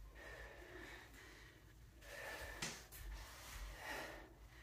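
Faint heavy breathing, with two longer breaths out, from a person working through dumbbell squats and deadlifts. A single light click comes partway through.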